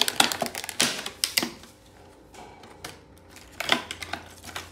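A clear plastic fruit tub and its plastic bag crackling and clicking as hands handle them: a run of sharp clicks in the first second and a half, and another short cluster near the end.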